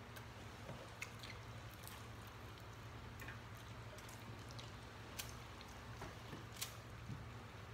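Quiet eating at a table: chewing, with a few light clicks of cutlery against plates, over a low steady hum.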